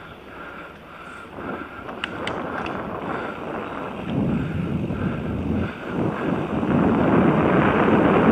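Wind buffeting a helmet-mounted camera microphone, with the rumble of mountain bike tyres rolling over a dirt trail, growing steadily louder as the bike gathers speed. A few light rattles sound about two seconds in.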